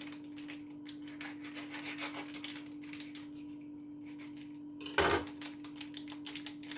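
Crinkling and rustling of a Horlicks packet being torn open and its powder emptied out, with one louder crackle about five seconds in.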